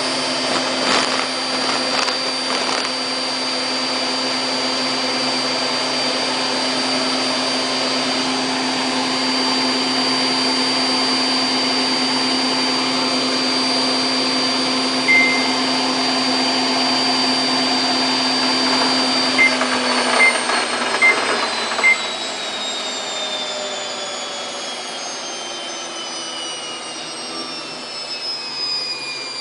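Samsung WF8804RPA washing machine spinning its drum at the top 1400 rpm with a steady motor whine. A short beep comes about halfway through and four more just after two-thirds, then the whine falls steadily in pitch as the drum spins down.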